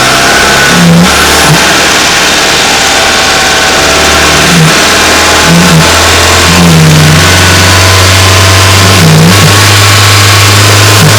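Renault 1.2 TCe turbocharged four-cylinder engine running, heard through a microphone under the bonnet, with a steady hum broken by about six short blips; the pitch of the hum steps up a little past the middle and holds. This is the engine whose noise at 2000 and 2800 rpm the owner traced to the turbo's recirculating dump valve.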